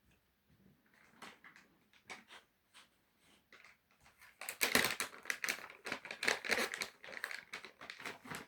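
Rapid crinkling and rustling scrapes, scattered at first and then dense and louder from about four and a half seconds in.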